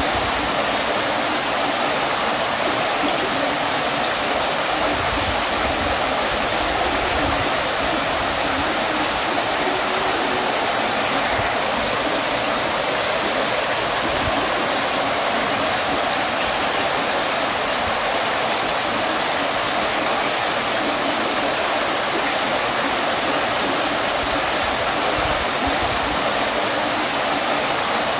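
Water fountain splashing: a steady, even rush of falling water with no breaks or changes.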